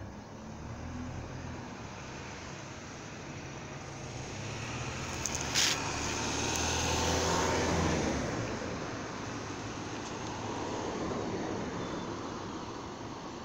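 A vehicle passing by: a low rumbling hum that swells over a few seconds and fades again, with one sharp clack near the middle.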